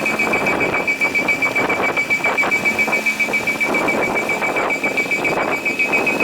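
Japanese railway level-crossing warning bell ringing in quick repeated strokes while a train runs past over the crossing.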